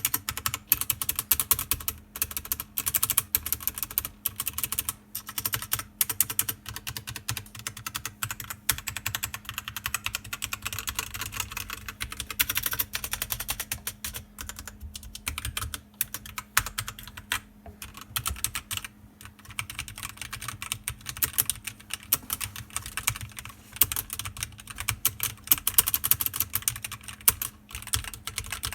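Continuous fast typing on a computer keyboard: dense, irregular keystroke clicks with a few brief pauses, over a steady low hum.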